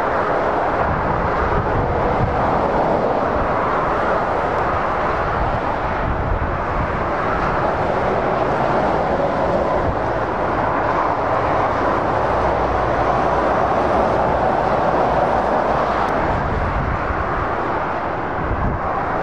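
Steady motorway traffic noise: lorries and cars passing continuously, with their tyres on the road and their diesel engines blending into one even rush.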